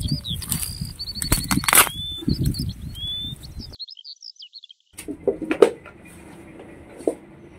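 Dry bamboo leaves and earth crunching and rustling, with a few knocks, as a young bamboo shoot is dug and pulled from the ground, while small birds chirp and trill. After a second of dead silence about halfway through, a few sharper taps and knocks as the shoot is handled and peeled with a knife.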